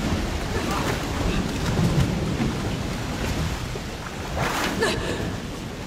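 Water rushing and churning over a deep, steady rumble, like a ship going down in the sea.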